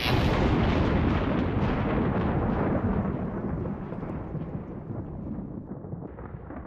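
A sound-effect boom: a sudden deep hit that rumbles on and slowly dies away over about seven seconds.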